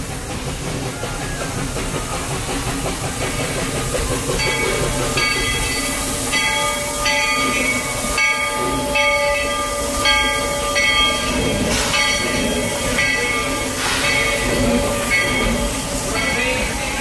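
Narrow-gauge steam locomotive passing and pulling into the station, with steam hiss and running noise. From about four seconds in, its bell rings steadily at about one and a half strokes a second.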